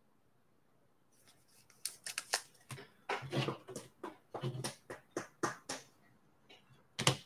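Trading cards and packaging being handled on a table: a few seconds of crinkling and sharp clicks starting about two seconds in, with one more short burst near the end.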